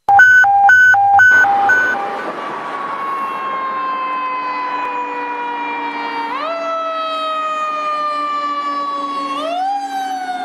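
Fire engine's electronic siren: a few short, loud horn blasts, then a slow wail that drifts down in pitch and sweeps quickly back up twice.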